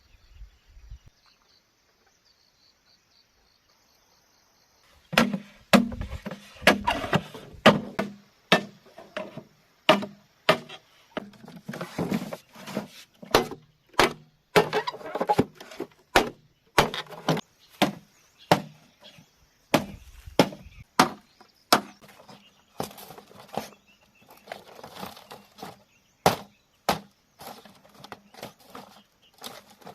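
A blade chopping bamboo with a steady run of sharp blows, somewhat under two a second, starting about five seconds in. Before that, only a faint high insect trill.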